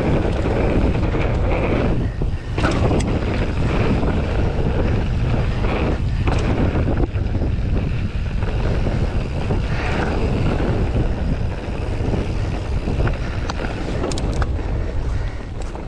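Wind buffeting the microphone over the rumble of a 2016 YT Capra AL 1 mountain bike's tyres rolling fast along a trail, with scattered clicks and rattles from the bike.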